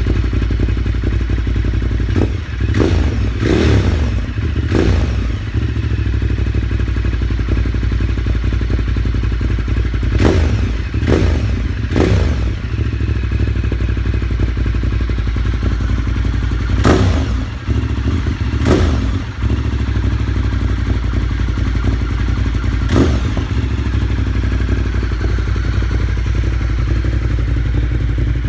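Ducati Monster 1200 S's L-twin engine idling steadily through a Termignoni slip-on exhaust, blipped nine times with short throttle revs that fall back to idle. The revs come in a quick run of three a few seconds in, another three around ten to twelve seconds in, then singles further on.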